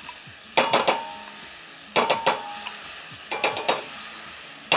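A metal spoon rapped against the rim of a frying pan in four quick bursts of several ringing taps, about every second and a half. Each burst knocks off batter, which scatters in drops into the hot oil to fry as tempura crumbs (agedama). Under the taps the oil sizzles steadily.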